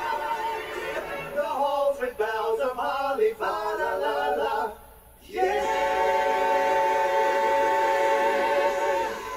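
Male vocal group singing in close harmony. A run of quick moving phrases is followed by a short break, then a long held chord with vibrato that ends just before the close.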